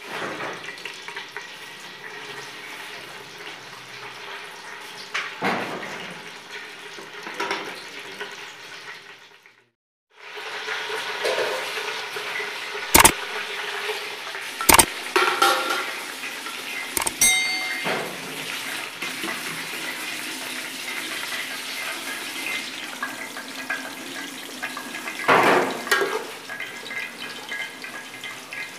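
Hot oil sizzling in an aluminium pot. About halfway through, sliced onions are tipped in from a steel plate with a few sharp metal clinks. They sizzle on in the oil while a metal ladle stirs them.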